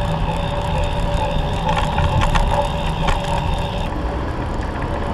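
Steady low rumble of street and road noise, with a few light clicks about two seconds in.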